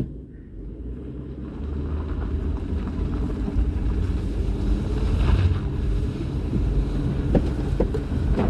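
A vehicle's engine running as it drives, getting louder over the first few seconds and then holding steady, with some wind noise and a couple of light knocks near the end.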